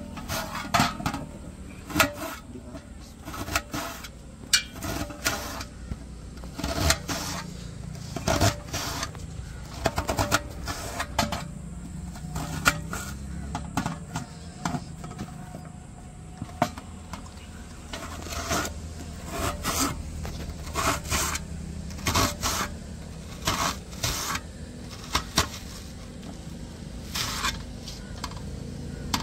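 Irregular knocks, clicks and scrapes of kitchen utensils and food being handled during cooking preparation, over a low steady hum.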